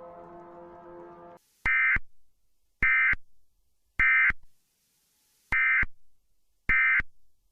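Emergency Alert System end-of-message data bursts: short, harsh digital screeches, three about a second apart, a pause, then two more. Before them a held chord of steady tones cuts off about a second and a half in.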